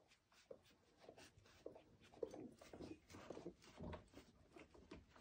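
Faint, irregular rustling and small squeaks from a litter of newborn German Shorthaired Pointer puppies stirring in a plastic basket, busiest in the middle.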